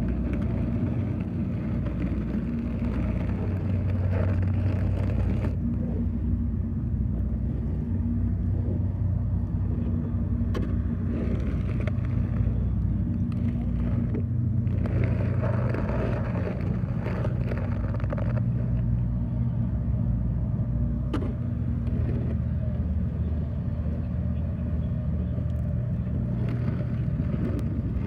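A vehicle engine running steadily as a low drone, with spells of scraping as a plastic snow pusher shoves wet snow across pavement, the longest about halfway through.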